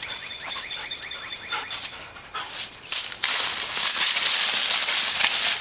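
A dog panting loud and close, starting about three seconds in.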